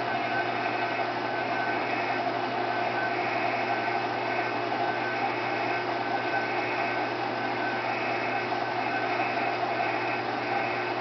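Milling machine running steadily with a large-diameter end mill plunge-cutting into a metal bracket: the spindle motor's steady hum under the even noise of the cut as chips fly off. The feed is slow.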